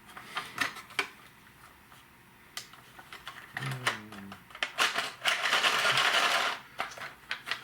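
Toy packaging being handled: scattered clicks and taps of plastic and cardboard, then a loud scraping rustle lasting about a second and a half, starting about five seconds in.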